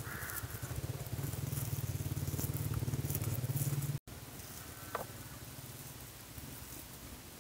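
Cooked chicken torn apart by hand, soft crackling and patter. For the first four seconds a steady low rumble sits under it and then cuts off suddenly.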